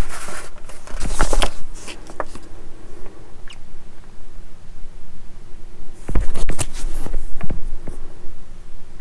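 Small plastic model-kit parts being handled and turned over on a work surface: light clicks, taps and scrapes, busiest about a second in and again about six seconds in.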